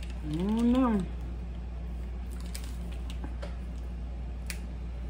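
A short hummed 'mmm' that rises and falls in pitch, then faint scattered clicks and ticks of a snack package being handled and opened, over a steady low hum.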